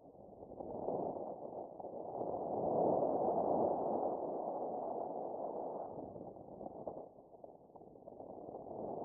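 Wind rushing over the microphone in flight, swelling about two to four seconds in and then easing off.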